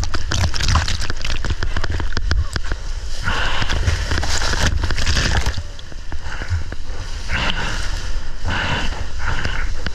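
Rushing whitewater and spray from a breaking wave washing over the nose of a surfboard and splashing against the board-mounted action camera, with a low buffeting rumble and many sharp droplet ticks. A denser hiss of spray rises in the middle while the board rides through the tube.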